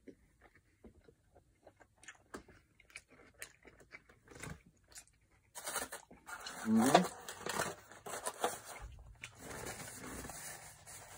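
Close-up mouth sounds of a person chewing a bite of pan-crisped burrito: scattered small crunches and wet clicks of the tortilla and filling. About seven seconds in comes a short hummed "mm", and the chewing goes on.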